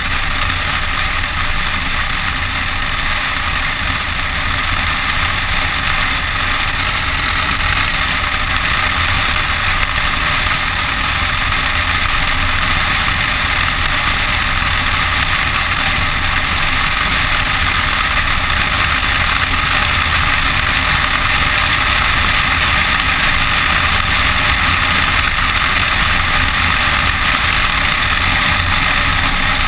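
SUV driving over packed snow, heard through a camera mounted outside on the body: a steady rush of wind on the microphone and tyre noise, with the engine running beneath.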